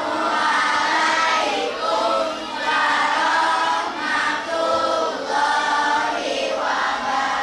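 A class of schoolchildren singing together in unison, in phrases of a second or two with short breaks between them.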